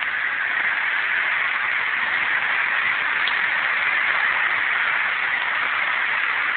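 Steady rain making an even hiss.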